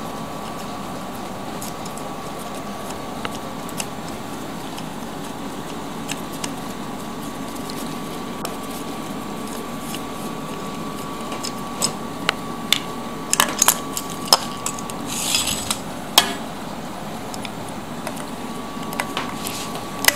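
Sharp metallic clicks and knocks of tools and parts being handled while a washing machine motor is taken apart, bunched about twelve to sixteen seconds in. A steady hum with a faint high whine runs beneath.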